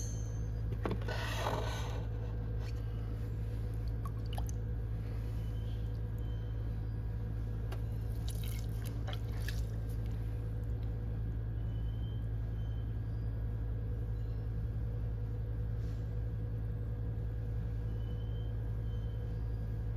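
Electric potter's wheel running with a steady low hum. Wet clay squishes and scrapes under the hands about a second in and again around eight to nine seconds.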